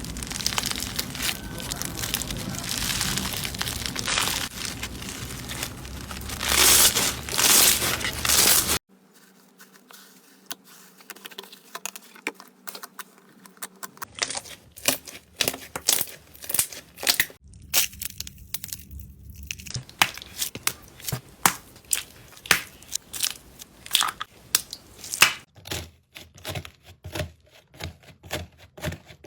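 Slime being squished and pressed, crackling and popping. The first part is a dense crinkly crackle. After a sudden cut about nine seconds in, it turns to sparser, separate sharp clicks and pops.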